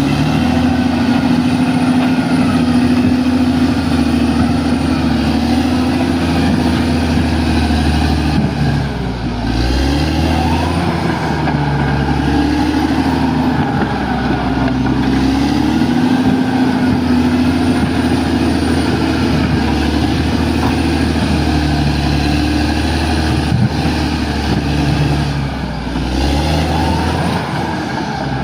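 Bulldozer's diesel engine running hard, its pitch rising and falling as it labours under load and eases off.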